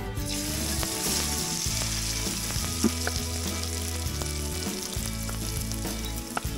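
Soaked, spice-marinated rice hitting hot oil and ghee in a karahi, setting off a steady sizzle as it is pushed in by hand from a plastic bowl, with a couple of light clicks.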